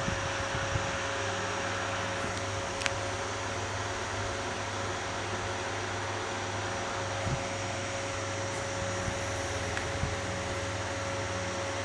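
Steady electrical hum with an even fan-like noise, with a faint click about three seconds in.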